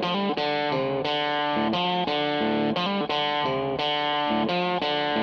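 Background music: an electric guitar with effects playing a steady sequence of chords that change about every half second.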